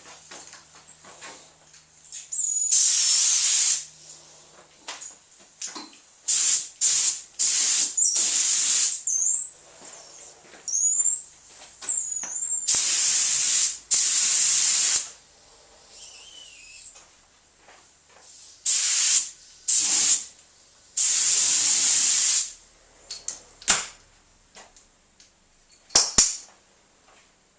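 Compressed-air paint spray gun spraying a coat of paint in about a dozen separate bursts, each from a fraction of a second to about two seconds long, as the trigger is pulled and let go, with short pauses between.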